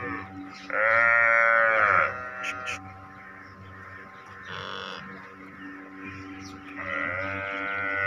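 An animal bleating twice: a loud drawn-out call about a second in, rising then falling in pitch, and a second similar call near the end, over a steady faint hum.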